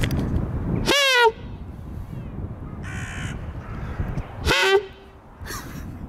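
Hooded crows cawing: two loud, drawn-out caws that rise and then fall in pitch, about a second in and again about four and a half seconds in, with a fainter, harsher caw between them.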